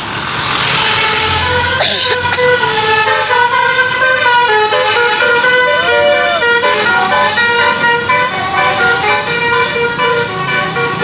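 A tour bus's Basuri musical air horn ('telolet') playing a melody: steady multi-tone notes that change pitch in quick steps, starting about a second and a half in.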